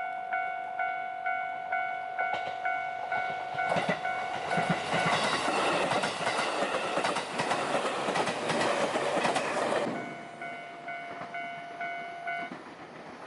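A Japanese level-crossing alarm rings its repeating electronic "kan-kan" bell, about three strokes a second. From about four seconds in to about ten, a train passes over the crossing and its wheels clatter on the rails loudly enough to drown out the bell. Afterwards the alarm rings on alone and stops near the end.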